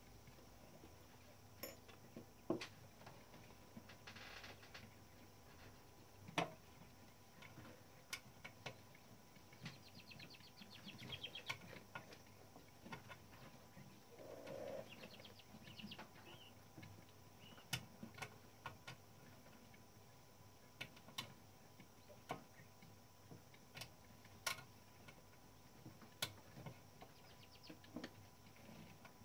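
Scattered small clicks and taps of a manual typewriter's mechanism being worked on by hand, with a short run of fast ratcheting clicks about ten seconds in.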